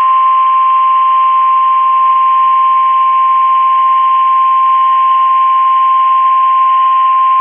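NOAA Weather Radio warning alarm tone: one steady, loud 1050 Hz tone over faint radio static, the signal that a warning, here a severe thunderstorm warning, is about to be read.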